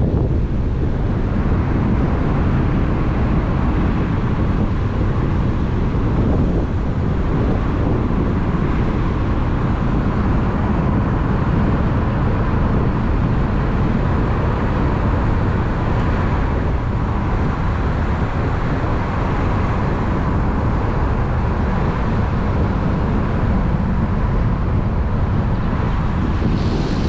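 Steady rumble of wind on the microphone over a boat's engine and the wash of water, with a faint steady whine throughout.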